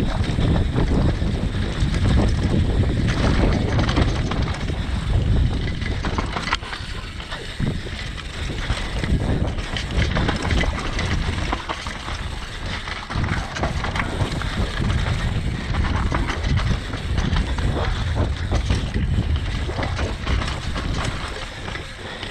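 Downhill mountain bike descending a dirt trail at speed: wind buffeting the camera microphone, tyres running over dirt, roots and stones, with the bike's chain and frame rattling and knocking over the bumps.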